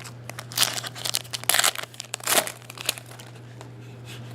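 Foil trading-card pack wrapper crinkling as it is handled and opened, in several short bursts over the first three seconds.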